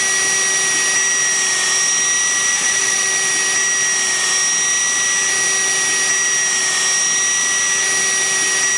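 Cordless drill running at a steady speed with a quarter-inch bit, boring a pilot hole into a fence post: an even motor whine that does not change.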